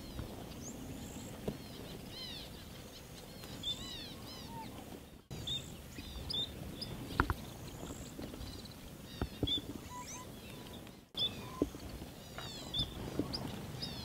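A flock of Gouldian finches and other small finches chirping: many short, high, overlapping chirps over a steady outdoor hiss, with a few soft taps. The sound drops out for an instant twice.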